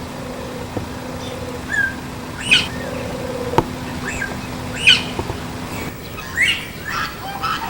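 Farm birds squawking and chirping in about seven short, separate calls, several of them sharp sweeps up and down in pitch, over a steady low hum that stops about three-quarters of the way through.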